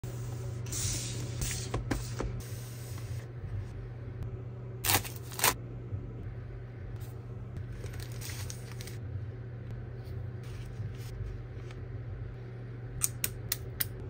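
Keyboard kit packaging being handled: the cardboard box and plastic-wrapped foam rustle and scrape, with two loud sharp bursts about five seconds in and a few quick plastic clicks near the end, over a steady low hum.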